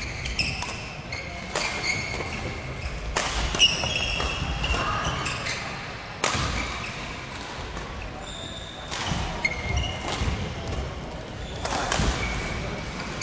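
Badminton rally sounds: sharp racket strikes on the shuttlecock every couple of seconds, with short high shoe squeaks on the court floor in between.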